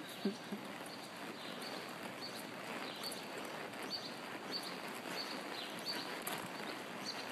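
Horse hooves on soft arena dirt: faint, muffled clip-clop at about two steps a second over a steady background hiss, with a brief knock just after the start.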